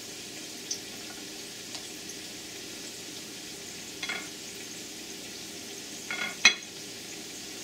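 Tomato slices being picked off a ceramic plate and laid on a fried shrimp patty: a few soft taps and one sharp knock against the plate about six and a half seconds in, over a steady hiss.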